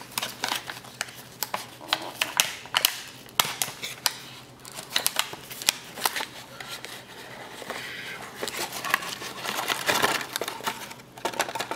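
Small cardboard trading-card box being torn open by hand, its paper wrapping peeled back and the stack of cards pulled out: irregular crackling, tearing and clicking.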